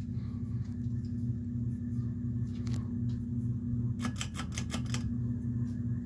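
1994 Encon 36-inch ceiling fan running, its motor humming steadily. About four seconds in, a rapid run of sharp clicks lasts about a second.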